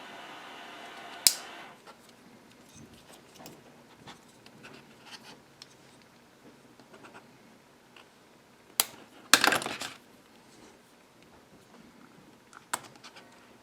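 Small plastic clicks and scrapes as a power window switch is pried apart with small screwdrivers, with a few sharp snaps: one about a second in, a louder cluster past the middle and one near the end. A steady pitched hum cuts off just after the first snap.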